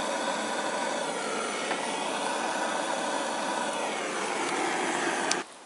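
Handheld gas torch on a screw-on gas canister burning with a steady hiss. The sound stops abruptly near the end.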